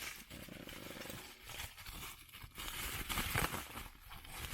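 Mail packaging being handled, crinkling and rustling irregularly as a card is worked out of it, loudest about three seconds in.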